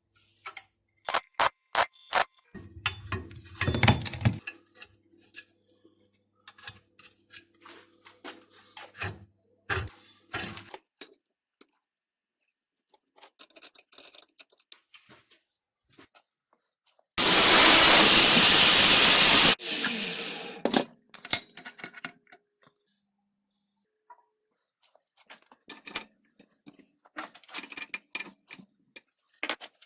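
Scattered clicks and knocks of metal parts being handled, then an angle grinder running loudly for about two and a half seconds. It is switched off sharply and its motor winds down with a falling whine.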